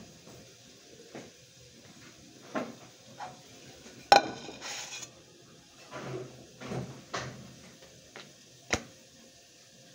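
Metal cookware clattering on a gas stove as a kadhai and utensils are moved about. The loudest is a sharp, ringing metal clank about four seconds in, followed by a brief rattle; several lighter knocks are scattered through the rest.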